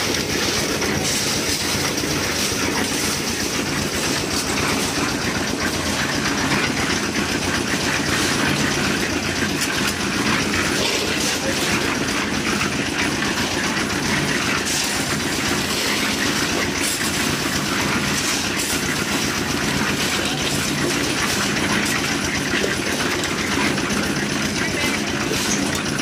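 Hopper-fed concrete mixer running steadily, its motor humming and its drum turning with a continuous rattling clatter.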